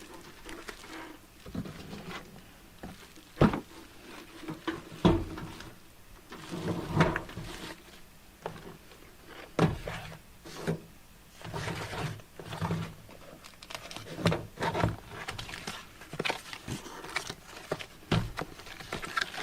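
Irregular knocks, thuds and rustles of a boxed product and its packed parts being handled and unpacked, with a few sharper thunks among them.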